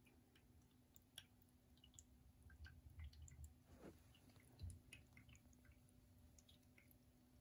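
Near silence: room tone with faint scattered ticks and clicks.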